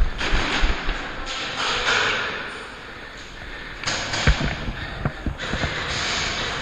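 Scattered knocks and thuds over rushes of noise that start abruptly, from an indoor airsoft game: shots and BB impacts.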